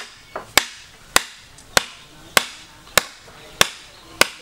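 A green bamboo pole being hammered into the ground by blows on its top with a piece of wood: eight sharp, evenly paced knocks a little over half a second apart, with a couple of fainter taps between.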